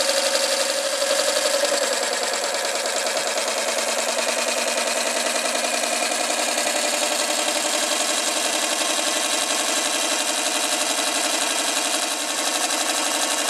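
Peake No. 6 'Hypnocycle' model steam engine running steadily on steam, a fast, even run of rapid exhaust beats and mechanical clatter.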